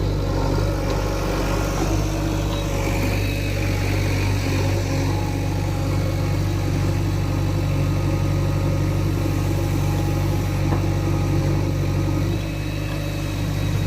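Diesel engine of heavy machinery running steadily at constant speed, its level easing a little near the end.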